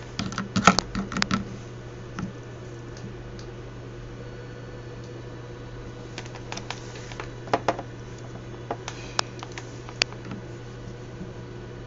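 Scattered light clicks and taps in small clusters over a steady low hum.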